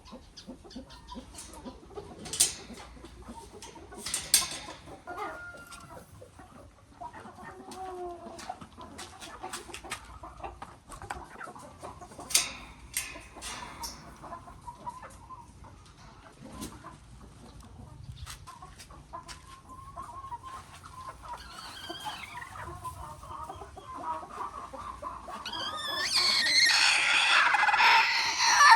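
Chickens clucking, with scattered sharp clicks and knocks. Near the end a loud, harsh burst of chicken calling starts and lasts several seconds.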